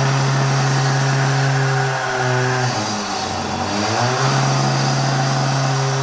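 Construction drilling machine running loud and steady with a droning hum over a harsh hiss; about two seconds in its pitch sags, then climbs back up to full speed about two seconds later.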